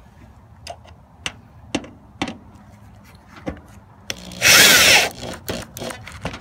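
Power drill driving a screw through metal gutter-guard mesh, running in one short burst of under a second about two-thirds of the way in. Several sharp clicks come before it and a few after.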